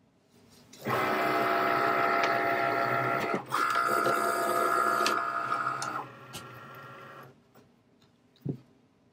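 Cricut cutting machine running as it starts a cut, its motors whining as they drive the mat in and out and move the cutting carriage. The motors start about a second in, break off briefly near the middle, and stop a little over halfway through, with a quieter run after it and a single click near the end.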